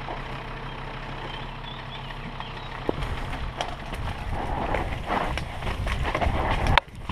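Downhill mountain bike rolling onto a rough dirt trail: a steady low hum at first, then from about three seconds in the clatter and rattle of the bike over bumps, with tyres on dirt and rushing air on a helmet camera.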